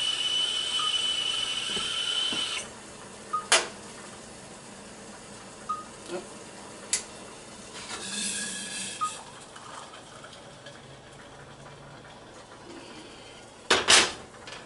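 Stainless whistling stovetop kettle sounding a steady high whistle at the boil, which cuts off suddenly about two and a half seconds in. A few clicks and knocks follow as the kettle is handled, a brief rush of water around eight seconds in, and a loud clunk near the end.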